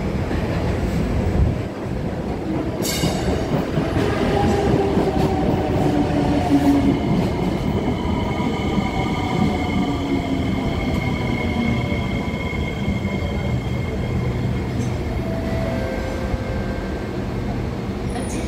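SMRT C751B electric train running into the station and braking, its Fuji Electric VVVF inverter and traction motors whining in a pitch that falls as the train slows, over a steady rumble of wheels on rail. There is a sharp click about three seconds in.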